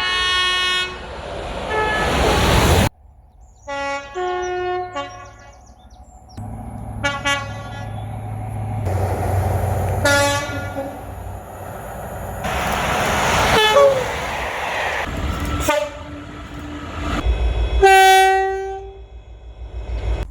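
Train horns sounding in a run of short blasts, some two-tone, each lasting a second or two. The clips are joined by abrupt cuts, and the rumble and rail noise of passing trains comes between them.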